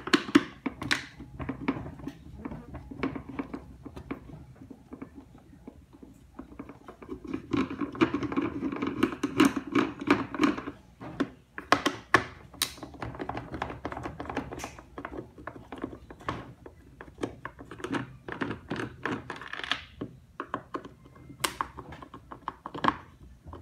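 Screwdriver backing Torx screws out of a pressure washer's plastic housing: a run of irregular small clicks and scrapes, with a few sharper knocks.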